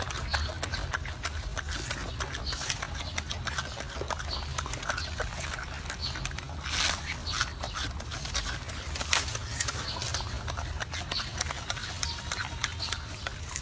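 Golden snub-nosed monkey chewing and biting into crisp leafy greens, giving irregular crunching clicks several times a second over a steady low hum.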